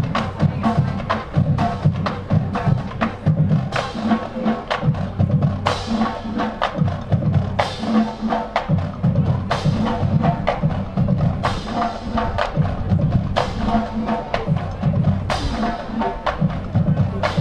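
Marching drumline playing a cadence: rapid snare strokes and rim clicks over tuned bass drums, with a loud accented hit about every two seconds.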